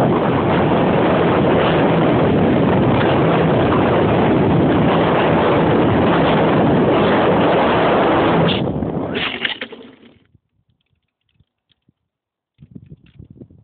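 Onboard sound of a model aeroplane in flight: a loud, steady rush of motor, propeller and wind noise. It fades away between about eight and a half and ten seconds in as the plane comes down on the snow, then only faint irregular knocks come near the end.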